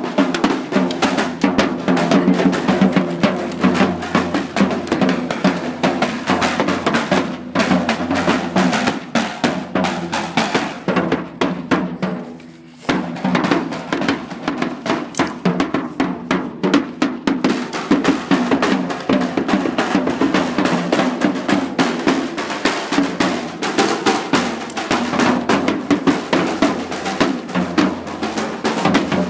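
Percussion group playing drums together: dense, fast snare strokes and rolls over bass drum. The level drops briefly about twelve seconds in, then the playing picks up again.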